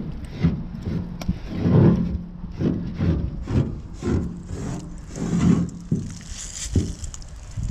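Tip of a wide paint marker rubbing and scraping across a rough textured wall panel while letters are drawn, in separate strokes about one every half second.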